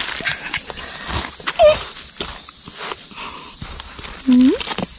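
Steady high-pitched drone of forest insects, with scattered light clicks and scrapes from a small spade working dry soil.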